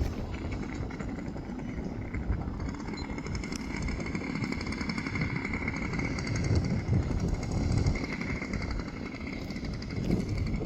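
Engine of a radio-controlled Sbach 342 aerobatic model plane running steadily, with a constant high tone over a rough low rumble.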